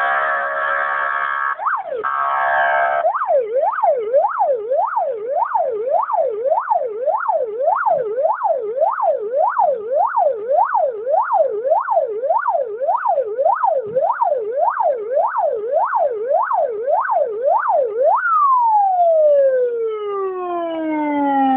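Police car electronic siren. It gives a harsher buzzing tone for about three seconds, then a fast yelp sweeping up and down about twice a second, and near the end it winds down in one long falling tone.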